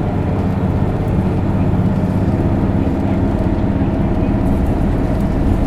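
Isuzu Erga city bus with a 6-speed manual gearbox under way, its diesel engine running with a steady loud drone and rumble, mixed with road noise, as heard inside the bus.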